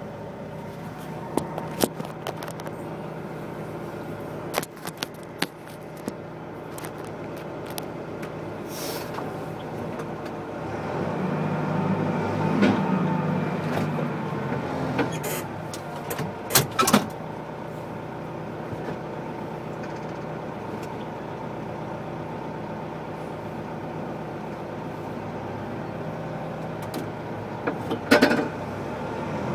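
Rough terrain forklift's engine running steadily, heard from inside the cab; it grows louder for a few seconds around the middle. Sharp clicks and knocks come through now and then, with a cluster near the end.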